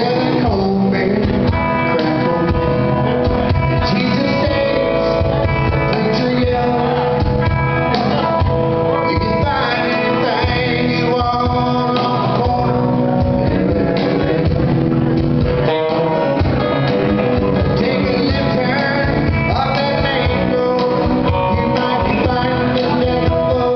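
Live country-rock band playing: a man singing over strummed acoustic guitar, electric bass and cajon.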